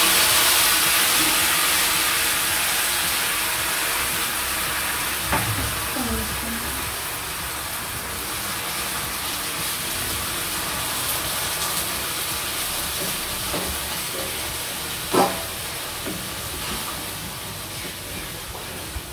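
Tomato-chilli pizza sauce sizzling in a hot pan, loud at first and slowly dying down. A couple of short knocks come through, at about five seconds and again near fifteen.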